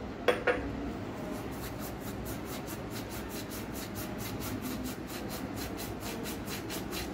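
Fingers rubbing and crumbling dried radhuni seed spice over a pan of simmering curry: a fast, even rasp of about five strokes a second over a steady hiss, after a short knock just after the start.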